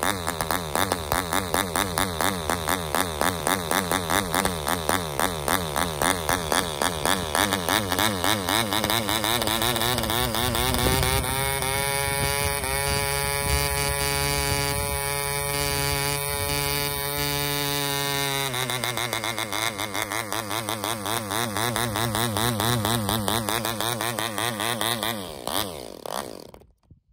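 Gordon Burford GB 250 2.5 cc model diesel engine running on a test stand and swinging an 8x4 propeller, its compression screw being adjusted by hand. It runs with a rhythmic pulsing, then about ten seconds in rises to a higher, smooth steady note. About eight seconds later it drops back to the pulsing run, and near the end it dies away and stops.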